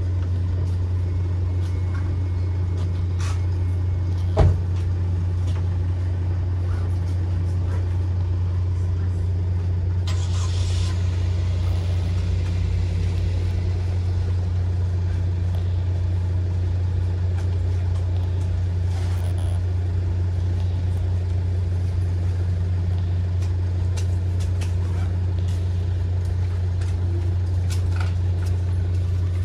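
Steady low mechanical hum, like an idling engine or machinery, at an even level, with one sharp click about four and a half seconds in.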